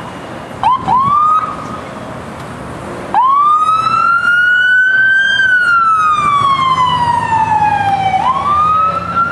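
Fire apparatus siren on wail. A short blip and a brief rise come about a second in. From about three seconds in a louder wail climbs, falls slowly over several seconds, and starts to climb again near the end.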